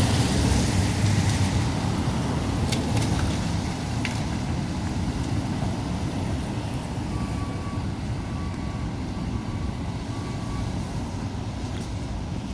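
Excavator's diesel engine running steadily at a low rumble, with a few short knocks of debris.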